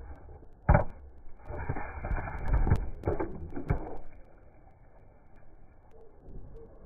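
A clear plastic toy capsule holding a die-cast car knocks onto a plastic slide, then rattles and scrapes down it for a couple of seconds with a few sharp clicks, ending in a splash into pool water.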